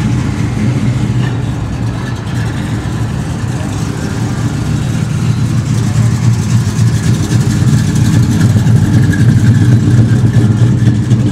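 A car engine running with a low, steady rumble that grows louder over the second half.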